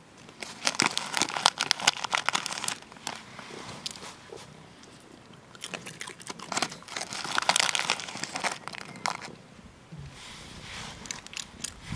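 A puppy and cats eating food scraps off the ground close by: quick crunching and chewing clicks in two busy spells, the first about half a second in and the second past the middle, with quieter chewing between.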